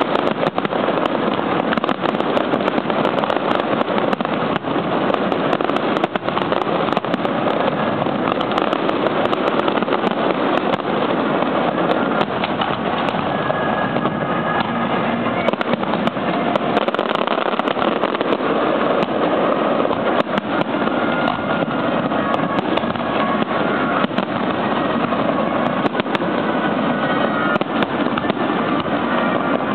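Fireworks display going off continuously, a dense run of bangs and crackles with no break.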